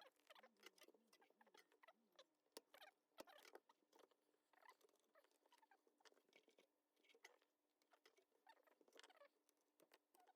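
Very faint scratching and small clicks of a tool working on a circuit board, freeing one leg of a fuse resistor, over a faint steady hum.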